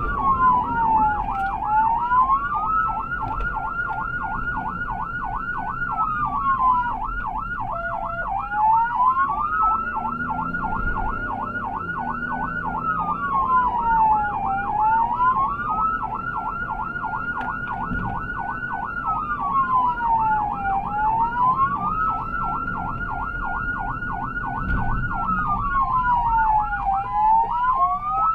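Emergency vehicle siren sounding continuously with a rapid yelp, several pitch swings a second, overlaid by a slower wail that drops and climbs back every few seconds. Low road and engine rumble sits underneath.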